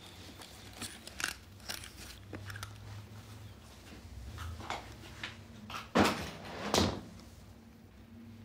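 Light clicks and knocks in a small room, then two louder knocks about six and seven seconds in, over a faint low hum.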